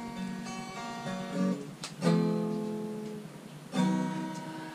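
Acoustic guitar music: strummed chords ringing out and fading, with fresh strums about two seconds in and again near the end.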